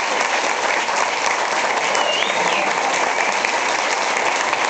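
Theatre audience applauding steadily, a dense spread of many hands clapping at once.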